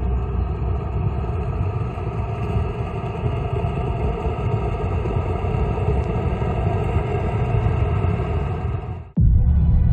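Steady low rumble of a car driving on a road, which cuts off abruptly about nine seconds in.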